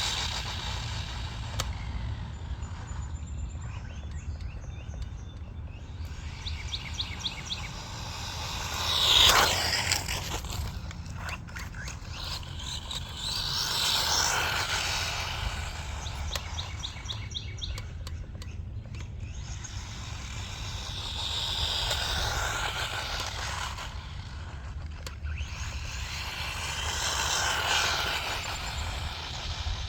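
Brushless electric motor of a 1/16 RC short course truck (2430 3800kv) whining at full throttle on a 3S battery as the truck makes speed passes. It rises and falls sharply once about nine seconds in, then swells up and fades away three more times. Birds chirp faintly between the passes.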